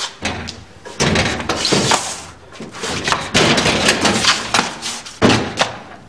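Sheet-metal door rattling and banging as it is knocked on and then opened, with a scrape near the middle and a loud bang a little before the end.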